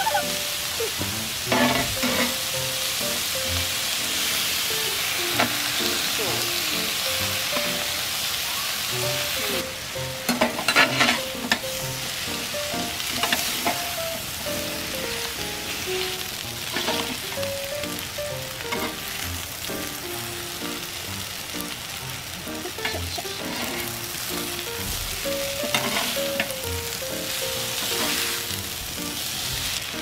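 Meat, cabbage and yakisoba noodles sizzling on a steel griddle plate over a wood campfire, with a spatula scraping and turning the food. There is a louder spell of clatter and sizzling about ten seconds in.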